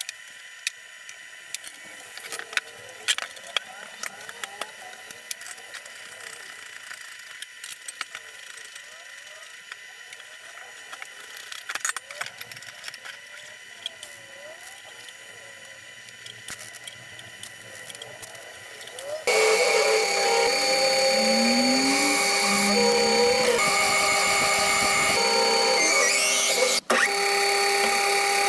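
Workshop handling of a steel frame: light clicks and taps over a faint steady whine. About two-thirds in, a metal lathe starts up loud and keeps running with a steady whine while it turns a steel part, briefly cut off near the end.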